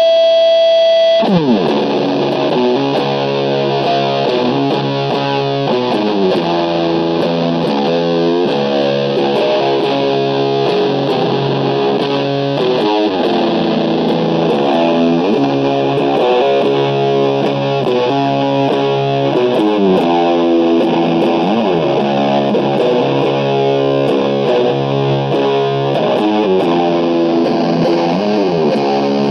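Heavily distorted electric guitar, an SG-style guitar through an Orange amplifier, playing a doom metal riff. A steady held note for about the first second drops in a downward slide into a slow, repeating riff of held chords with sliding notes.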